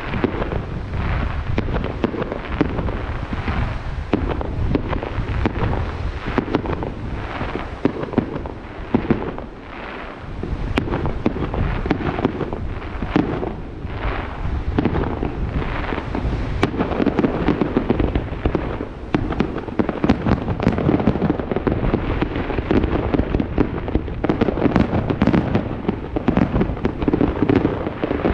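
Fireworks display: a dense, continuous barrage of shell bursts and crackling. The bangs ease briefly about nine to ten seconds in, then come thicker again toward the end.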